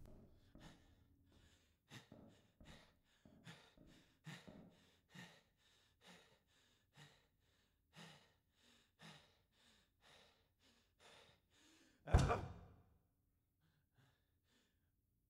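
A man panting in short, soft breaths, about one or two a second, then one much louder sighing exhale about twelve seconds in.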